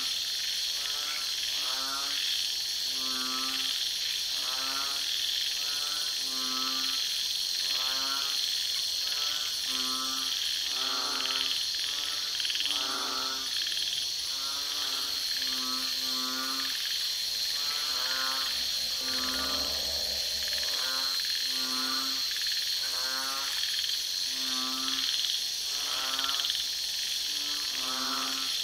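Night ambience of frogs croaking, short pulsed calls about once a second, over a steady high chirring of insects and a faint fast cricket chirp.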